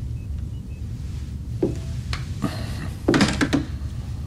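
A few short knocks and clunks, the loudest cluster about three seconds in, over a low steady hum.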